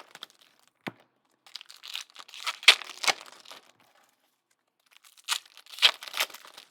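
Foil trading-card pack wrappers being torn open and crinkled in two bursts, with a sharp click about a second in.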